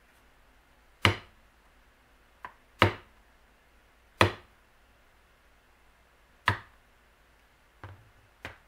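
Mallet striking a leather beveling tool into tooling leather: four sharp knocks one to two seconds apart, with a few lighter taps between them and near the end.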